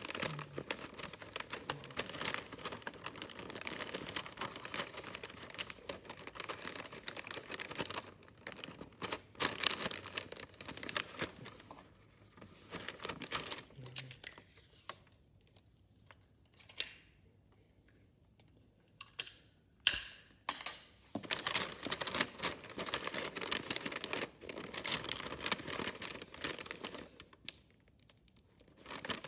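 Wrapping paper crinkling and rustling as hands fold and press it around a box, in irregular crackles and sharp clicks, with quieter pauses about halfway through and near the end.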